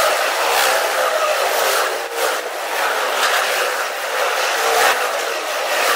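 Freight train of autorack cars rolling past close by: steady wheel-and-rail noise that swells and fades every second or so.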